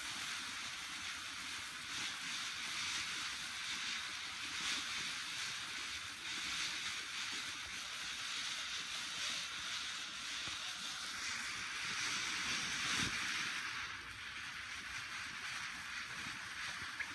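Kylin King 'Bees Escaping' ground fountain firework spraying sparks with a steady high hiss.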